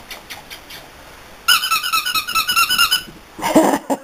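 Chihuahua puppy squealing during rough play, a fast unbroken run of high squeaks lasting about a second and a half, followed shortly by a brief, lower yelp.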